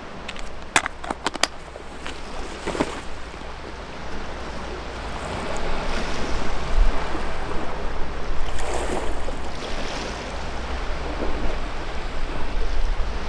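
Sea waves washing on the shore, an even rushing that swells and eases every few seconds. A few sharp clicks of handling sound in the first three seconds.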